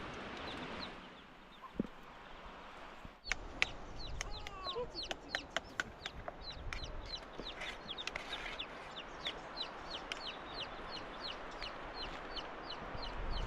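Chickens calling: many short, high, falling chirps, several a second, starting abruptly about three seconds in.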